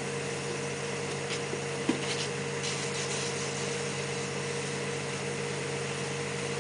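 Steady hum of a running motor-driven machine at the septic tank work site, holding one pitch throughout. A single sharp knock about two seconds in, with a few faint metallic clinks of tools around it.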